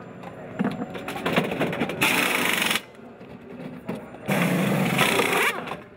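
Pneumatic impact wheel guns rattling in two short bursts during a racing-car wheel change, the first about two seconds in and a longer one just past four seconds.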